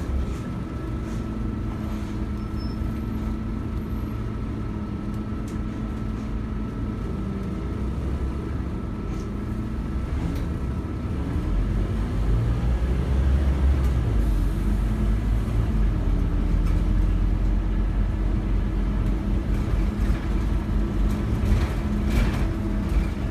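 A Scania OmniCity bus heard from inside the passenger saloon: the diesel engine runs under a steady hum of cabin and road noise. About halfway through, the engine note shifts and grows louder, and it stays louder.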